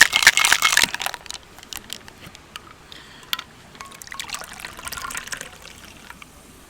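Cocktail shaker with ice rattling as it is shaken, stopping about a second in. Later the drink is poured out of the shaker into a glass, a soft trickle around four to five seconds in.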